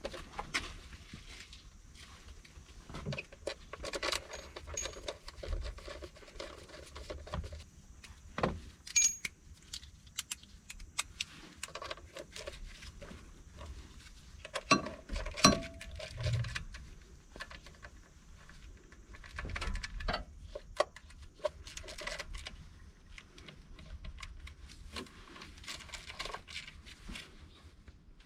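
Irregular metallic clinks, knocks and rattles of hand tools and small metal parts being handled, with a few sharper knocks among them.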